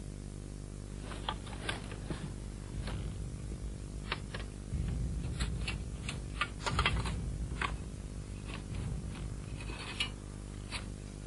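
Short metallic clicks and rattles of rifles and kit being handled, with a steady low hum underneath. The clicks come thickest about five to eight seconds in.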